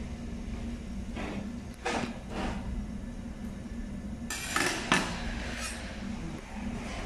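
Butcher's knife and meat cleaver clinking and knocking against the carcass and steel work table while deboning a whole pig: a few scattered knocks and scrapes, the sharpest just before five seconds in. A steady low machine hum runs underneath.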